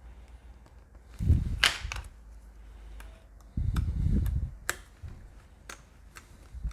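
Handling noise on a workbench while a laptop is put back together: a few sharp clicks and taps of small parts and tools, with two spells of low, dull knocking.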